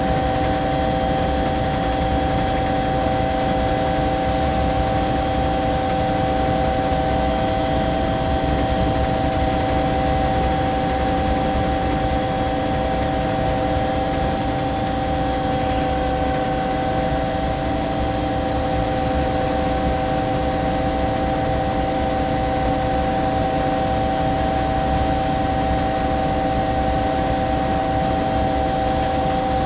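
Cabin interior of a Bell 212 twin-engine helicopter in flight: a steady, dense rotor and turbine drone with a constant whine of several fixed tones over it.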